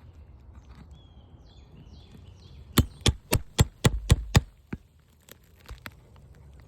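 Hammer tapping on an asphalt roof shingle tab: seven quick sharp strikes in about a second and a half, then a few lighter taps.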